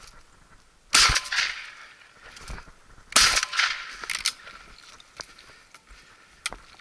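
Two shotgun shots from an SKB 505 over-and-under, about two seconds apart, the first about a second in, each with a short echoing tail.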